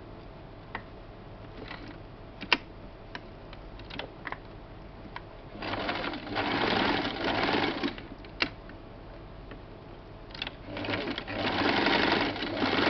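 Electric sewing machine stitching in two short runs: one of about two seconds around the middle, and another starting near the end. A few light clicks come before it starts.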